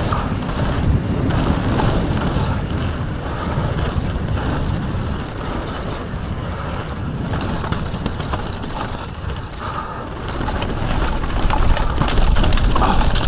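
A mountain bike descending a dirt trail at speed: wind rushing over the on-bike microphone with the rolling rumble of the tyres, and short rattles and knocks from the bike over bumps, getting louder near the end.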